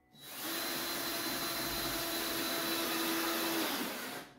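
Cordless drill driving a screw into wood, its motor running at a steady pitch for about four seconds before stopping.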